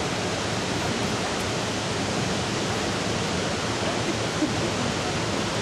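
Steady roar of rushing water from the Iguazú Falls, heard from an open boat on the river.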